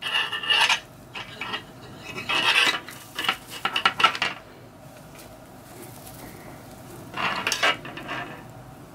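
Plastic deco mesh rustling and a metal wire wreath frame clinking and scraping as the wreath is handled, in irregular bursts with a lull in the middle and one more burst near the end.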